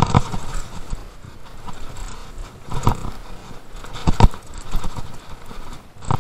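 Mountain bike clattering and rattling down a rough bike-park trail. Heavy thuds come right at the start, about three seconds in and about four seconds in, with lighter knocks in between.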